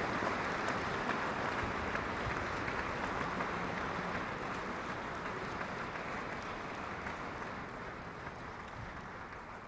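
An audience applauding steadily, the clapping slowly dying down toward the end.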